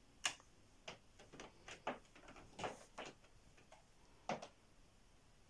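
A series of sharp clicks and knocks as someone steps onto and settles on a glass digital bathroom scale. The loudest comes just after the start and another near the end.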